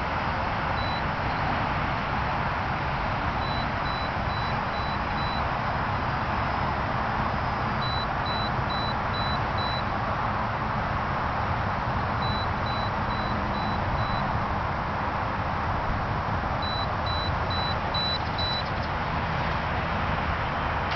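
Steady rushing noise, with faint high electronic beeps over it in groups of about five short beeps, each group repeating every four to five seconds.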